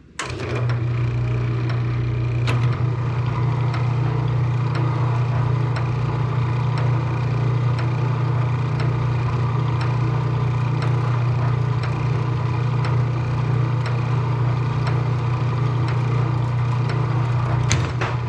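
Circa-1922 Apex Rotarex washing machine switched on and running with a steady electric-motor hum and a regular light clicking from its drive. A sharper clack near the end is the mechanism shifting direction on its newly fitted shift spring.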